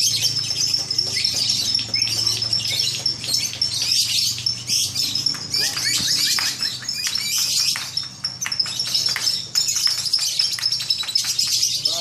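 Lovebirds chattering: a dense, unbroken stream of rapid, high-pitched chirps.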